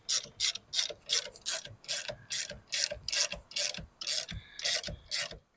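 Hand ratchet worked back and forth in quick rasping strokes, about four a second, stopping just before the end.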